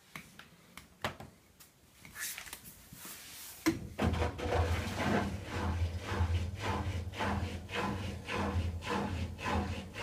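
Hoover washer-dryer starting a drying cycle: a few light clicks, then about three and a half seconds in the drum motor starts with a steady low hum, and the clothes turning in the drum give a rhythmic swish repeating two or three times a second.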